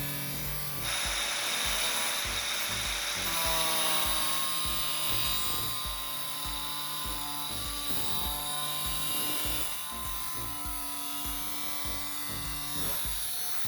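Background music with a steady thumping beat. A rushing, hissing noise rises over it about a second in and eases off after about three seconds.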